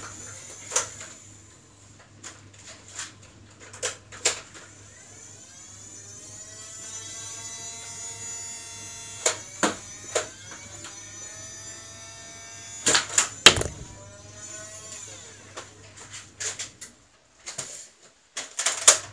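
A small electric motor whirring for about nine seconds, winding up, holding, then winding down, with scattered sharp clicks and knocks; a quick cluster of knocks about thirteen seconds in is the loudest part.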